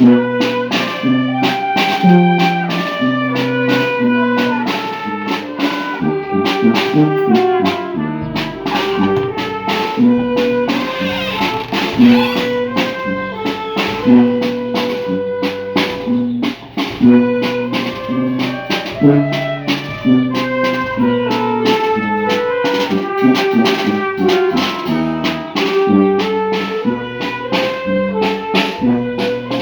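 Band music: brass and saxophone playing a melody over a drum kit with a steady beat.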